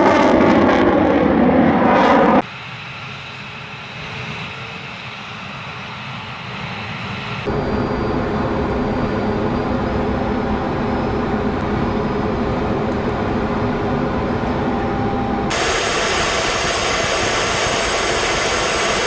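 Jet fighter aircraft engine noise, steady and loud, made of several joined recordings that change abruptly about 2.5, 7.5 and 15.5 seconds in. The middle stretch is quieter.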